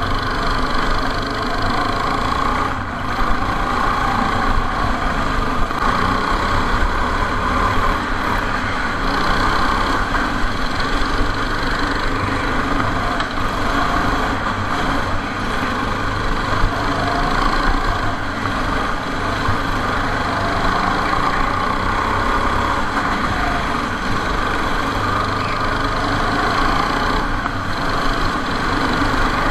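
Go-kart engine running at speed on a lap of an indoor track, recorded onboard: a loud, steady engine drone whose note shifts a little as the kart moves along.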